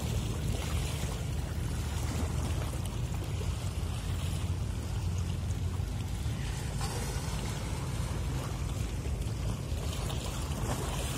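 Steady low rumble of a ship's engine heard on board while under way, with wind and water hiss over it.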